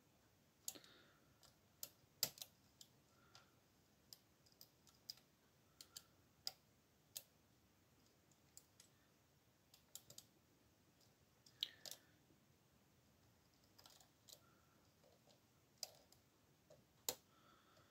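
Faint, irregular metallic clicks from a dimple pick and wire tool working the pins and sliders inside a Yale TS007 euro cylinder lock, about one or two clicks a second.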